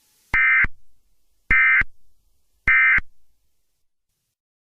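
Three short bursts of Emergency Alert System end-of-message data tones, each about a third of a second long and a little over a second apart: the digital code that marks the end of the alert.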